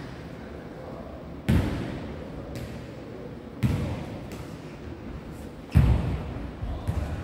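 Jokgu ball being kicked and bouncing on a wooden gym floor during a rally: three loud thuds about two seconds apart, then a few lighter knocks near the end, each echoing in the hall.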